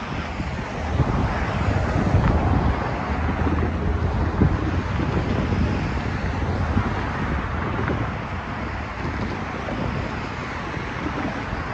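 Wind buffeting the microphone over the steady noise of cars and light trucks driving by on the road.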